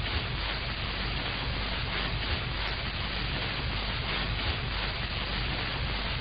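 Steady hiss and low hum of an early-1930s optical film soundtrack, with no speech.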